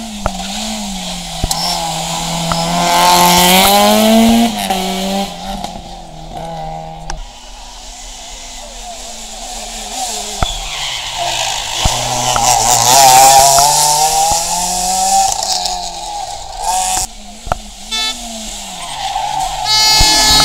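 Rally cars, among them a Peugeot 205 and Renault Clios, passing one after another at full throttle. Each engine note climbs in pitch as it revs and is loudest at two passes, one a few seconds in and one about midway, with tyre squeal in the corners.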